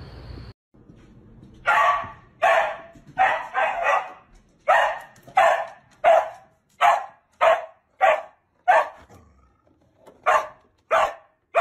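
A red cattle dog barking over and over in short single barks, about one every two-thirds of a second, pausing briefly near the end before barking again.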